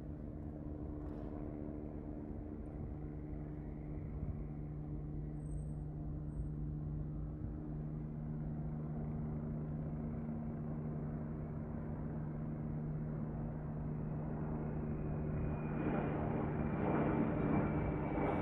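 AgustaWestland AW109S Grand helicopter approaching, its twin turboshaft engines and main rotor making a steady low drone that grows gradually louder. About two seconds before the end, a rhythmic rotor beat and a high turbine whine come in as it nears.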